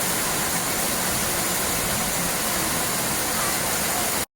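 Steady rushing noise of falling water, even and unbroken, which cuts off abruptly to silence for a moment near the end.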